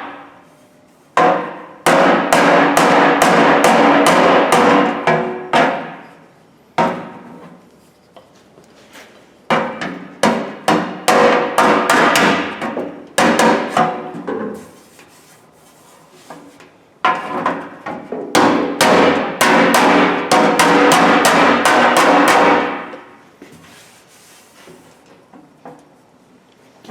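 Body hammer striking the thin sheet steel of an old Craftsman toolbox in four runs of rapid blows, the metal ringing after each strike, with short pauses between the runs. The dents are being hammered out, with the metal close to being stretched too far.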